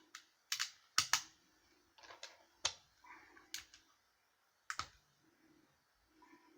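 Small plastic Lego pieces clicking as they are handled and pressed onto a build: about eight sharp, irregularly spaced clicks.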